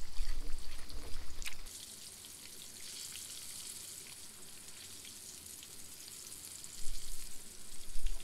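Hot oil sizzling steadily as batter-coated food deep-fries. There are low rumbles at the start and again near the end.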